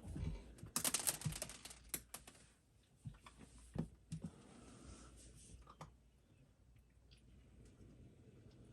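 A quick flurry of light clicks and rustling about a second in, then a few scattered single clicks. These are small handling noises from the puppy and treats at the crate.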